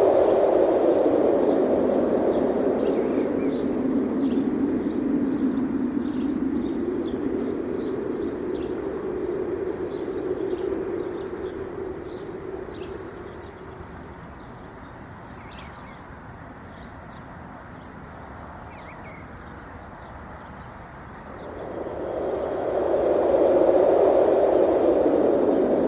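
Wind gusting, loud at first, then easing off and dying down for several seconds before surging up again near the end. Small birds chirp rapidly and repeatedly through the gusts.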